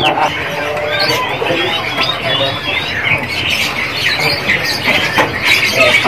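Many caged songbirds chirping and calling at once: overlapping short, high chirps and quick up-and-down whistles.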